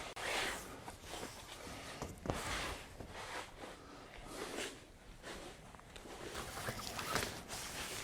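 A broom sweeping a floor: a run of soft, irregular brushing strokes.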